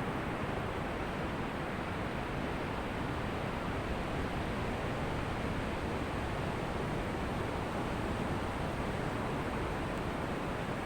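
Ocean surf on a beach: a steady, even rush of waves with no single breaker standing out.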